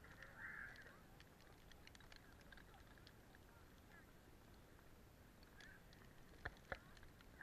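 Near silence: faint open-air hush with a faint distant call about half a second in and two sharp clicks near the end.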